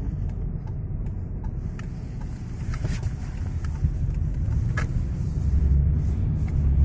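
Low road rumble inside a moving Toyota Camry 70, with a few sharp knocks from the suspension, the clearest about three and about five seconds in. The dealer puts the knocking down to the shock absorbers; the owner thinks it sounds more like stabilizer links or a loose dust boot.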